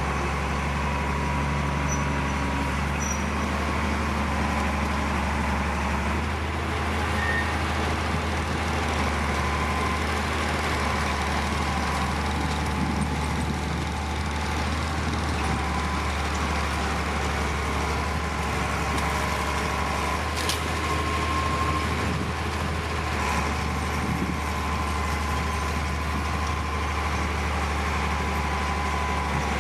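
Heavy diesel earthmoving machinery running steadily, a constant low engine drone with a faint thin whine above it.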